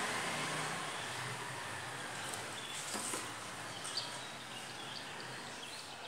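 Outdoor ambient noise: a steady rush that slowly fades, with a few faint high chirps and light clicks about two to four seconds in.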